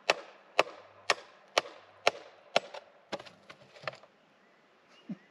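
Repeated sharp wooden knocks, about two a second, as a post topped with a small home-made wooden box is pounded into the ground; the knocking stops about four seconds in.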